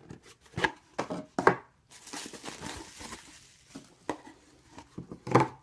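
Watch packaging being unwrapped and opened: plastic and paper crinkling and tearing, with a few sharp clicks and knocks from handling the box.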